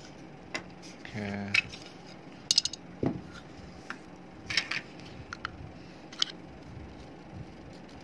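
Small metal hand tools and a plastic phone-charger case being handled: scattered sharp clicks and clinks, the loudest a quick cluster about two and a half seconds in.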